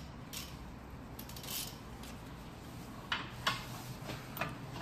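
Scattered light metallic clinks and clicks from a socket and ratchet being handled and fitted onto a rear suspension bolt, over a faint low hum.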